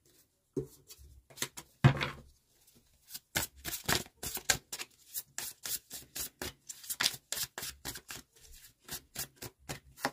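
A deck of tarot cards being shuffled by hand: many quick papery clicks and slaps in runs, with a louder knock about two seconds in.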